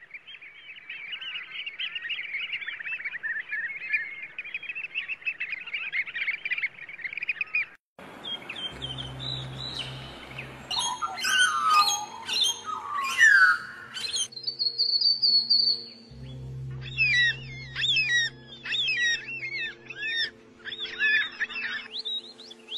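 Small birds chirping and singing. First a dense run of rapid high chirps for about eight seconds, then after a brief break varied song phrases, a clear whistled note and repeated chirping phrases, over a soft sustained music backing.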